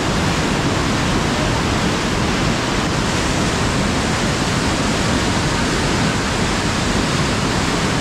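Water rushing steadily through an open spill gate of a river weir, a loud continuous flow of turbulent water.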